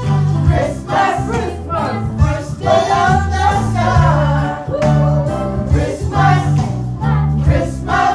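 A group singing a Christmas song together over instrumental accompaniment with a steady, repeating bass line.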